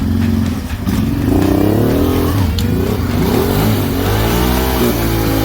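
Honda Transalp 600's V-twin engine revving up and down repeatedly as the throttle is worked, with a steady rushing hiss over it.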